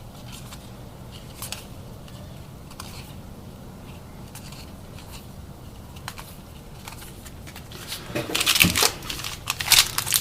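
Trading cards being handled and slid through the hands with faint light clicks, then about eight seconds in, loud crinkling and tearing of a card pack's wrapper as the next pack is opened.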